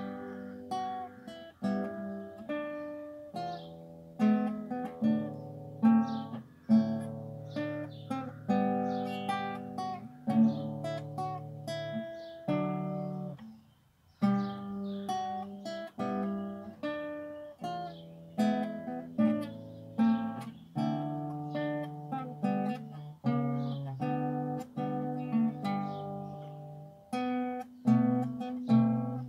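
Solo classical guitar playing a melody of plucked notes over a bass line, with a short break about halfway through before the playing resumes.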